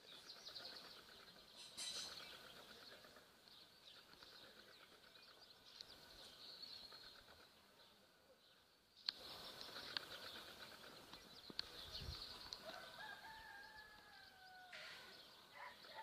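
Quiet rural outdoor ambience with faint birds chirping and a brief click about midway; a distant rooster crows once, its call falling away at the end, about four seconds from the end.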